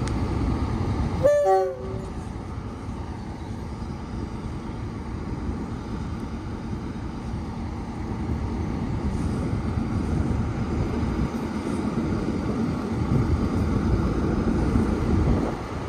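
Class 47 diesel locomotive hauling a train of coaches towards the platform, its Sulzer V12 engine rumbling steadily and growing louder as it nears. About a second in it gives a short two-note horn blast, high then low.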